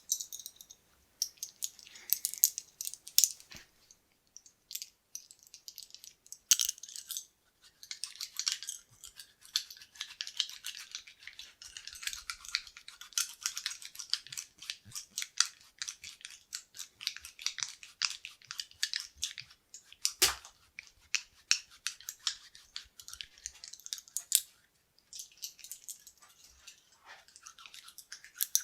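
Sewing buttons clicking and rattling against one another in a dense run of light, quick clicks. A few sharper, louder clicks stand out, one about two-thirds of the way through.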